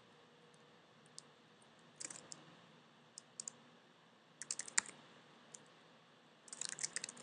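Typing on a computer keyboard: faint keystrokes in short bursts, about two seconds in, around four and a half seconds in, and a longer run near the end.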